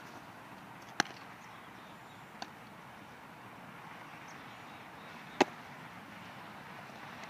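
Baseball long toss: a thrown baseball smacks into a leather glove with one sharp pop about five seconds in. There is another loud snap about a second in and a faint, distant pop about two and a half seconds in, over steady outdoor background noise.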